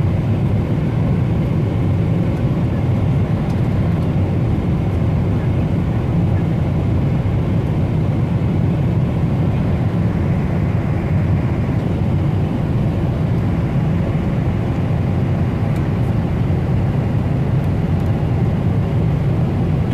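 Airliner cabin noise in flight: the engines and rushing air make a steady, deep rumble, heard from inside the passenger cabin.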